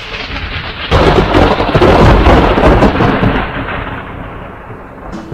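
Thunder: a sudden loud crack about a second in, then a long rumble that slowly dies away.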